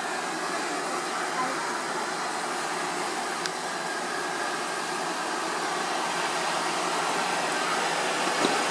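Hair dryer working as a forge blower, running steadily and pushing air through a vacuum-cleaner hose into a coal fire in a brake-drum forge: an even rushing noise that grows slightly louder near the end.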